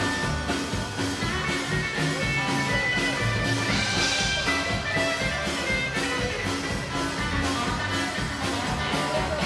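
Live rockabilly band playing an instrumental break on acoustic guitar, upright bass and drum kit, with a cymbal crash about four seconds in.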